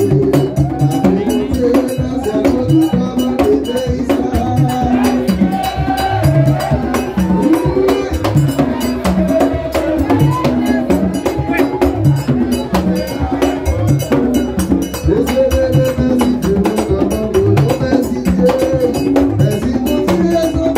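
Live traditional music: a man sings into a microphone over fast, steady bell-like percussion ticks, with other voices joining in.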